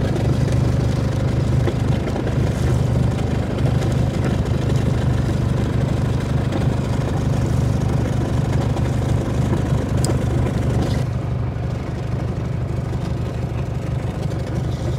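Boat engine idling: a steady low hum that holds its pitch.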